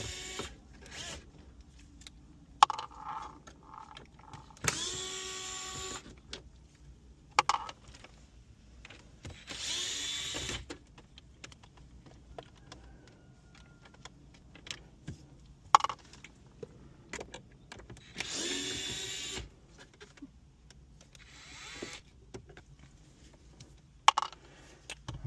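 Electric screwdriver spinning in about four short runs of a second or so, each winding up in pitch, backing out the screws that hold the radio dash trim. Sharp clicks and taps fall between the runs.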